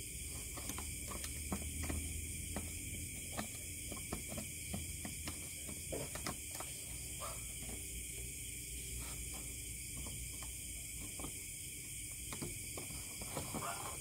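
Small, irregular clicks and taps as a gaming mouse's circuit board and button switch are handled, over a steady high background hiss and a low hum.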